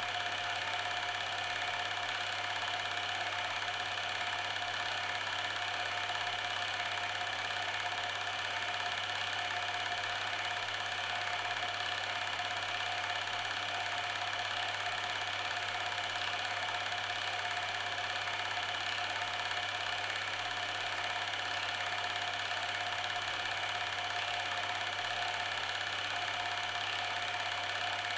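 A steady, unchanging machine-like hum made of several constant tones, with no change in pitch or loudness.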